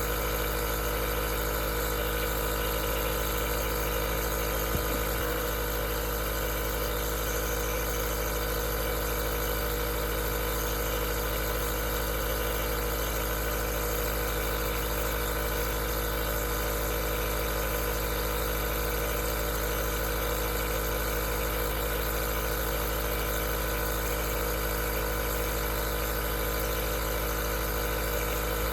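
Aerosol nebulizer running with a steady, unchanging mechanical hum over a hiss.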